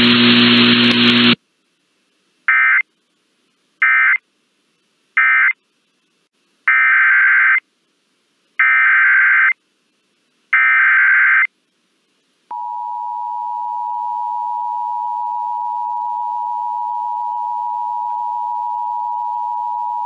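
NOAA Weather Radio emergency alert signalling. Three short warbling SAME data bursts close the previous warning as its end-of-message code. Three longer bursts follow, the header of a new warning, and then the steady single-pitch 1050 Hz warning alarm tone starts about twelve seconds in and holds.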